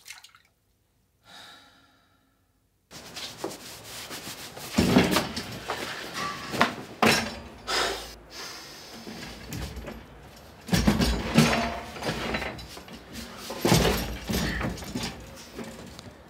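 After a near-silent start, a run of knocks, clunks and rustling from a drafting table being handled and its top tilted up, with several louder thumps spread through.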